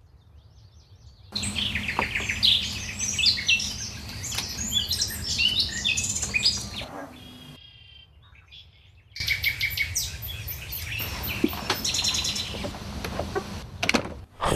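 Small birds chirping and singing in a busy chorus of quick, high notes. It comes in two stretches that start and stop abruptly, with a near-silent gap of a second or two between them.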